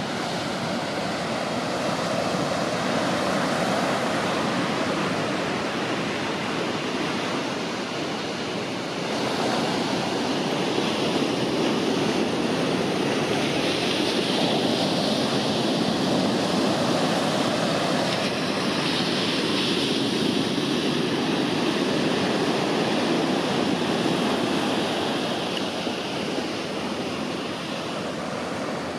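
Ocean surf breaking and washing up the sand in a steady, rushing wash that grows louder about a third of the way in and eases near the end.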